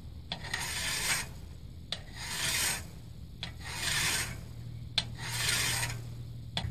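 Hand file pushed along the steel edge of a taping knife clamped in a vise: four filing strokes about a second and a half apart, each starting with a sharp click, squaring and flattening the edge for use as a card scraper.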